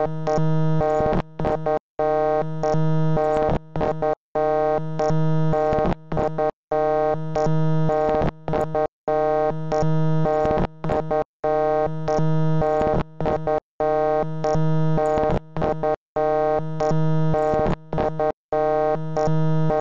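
A harsh, buzzy synthesized tone made of many stacked pitches, held steady and chopped by short silences into a repeating stop-start pattern.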